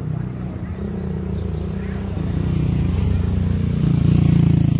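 Motorcycle engine running as it approaches and passes close by, growing louder to its loudest about four seconds in.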